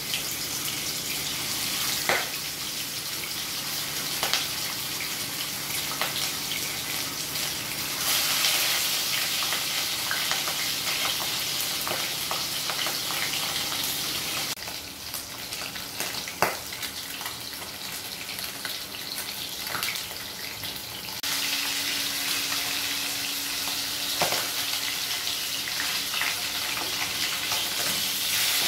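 Pieces of katla fish sizzling as they shallow-fry in hot mustard oil in a kadai: a steady frying hiss with a few sharp spattering pops.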